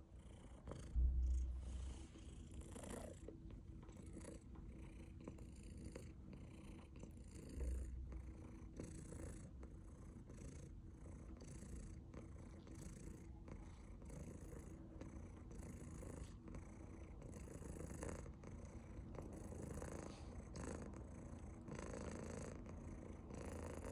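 Domestic cat purring steadily, pulsing evenly somewhat more than once a second, with two dull low thumps about a second in and about eight seconds in.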